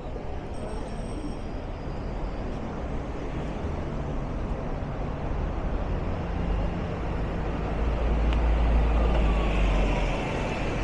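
City street traffic, with a heavy vehicle's engine running close by; its low rumble grows louder in the last few seconds.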